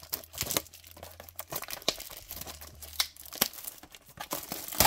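Plastic wrapping crinkling and tearing as a trading card blaster box is opened, in a string of sharp crackles with one loud crackle near the end.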